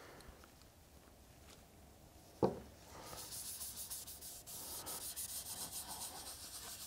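A cotton rag rubbing leather dye into a quilted maple guitar top: a faint, fast, scratchy rubbing that starts about three seconds in. Just before it, a single short knock.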